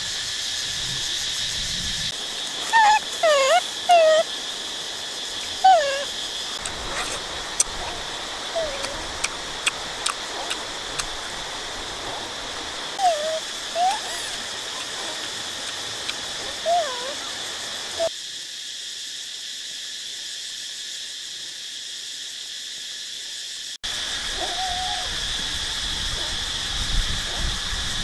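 Young macaques giving short squeaky calls that rise and fall in pitch, a quick cluster a few seconds in and more scattered ones later, over a steady high drone of evening insects.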